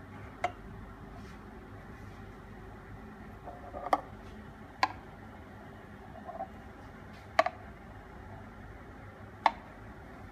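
Steady low machine hum with about five short, sharp clicks spread across it.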